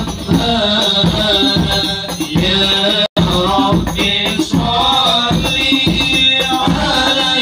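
Group of male voices singing sholawat (devotional praise of the Prophet Muhammad) to hand-drum percussion. The audio drops out for an instant about three seconds in.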